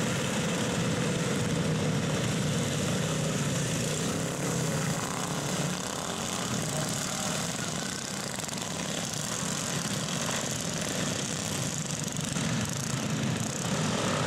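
Several racing garden tractors' small engines running hard together in a steady drone that dips a little about halfway through and builds again near the end.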